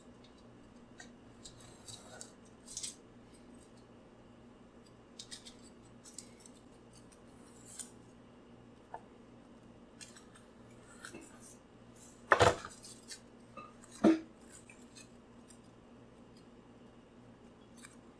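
Aluminium foil being cut with a pocket knife and handled: scattered soft crinkles and scrapes, with two louder crackles about twelve and fourteen seconds in.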